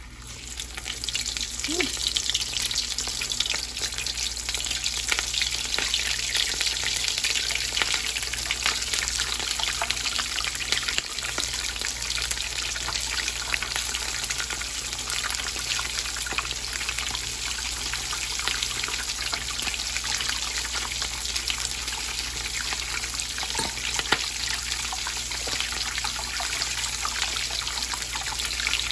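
Corn-masa empanadas frying in hot oil: a steady, dense crackling sizzle that swells up within about the first second and then holds.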